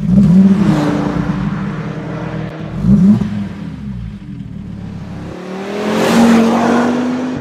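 Car engine revving hard in repeated blips, with a sharp rise about three seconds in and a longer climb near the end before it dies away.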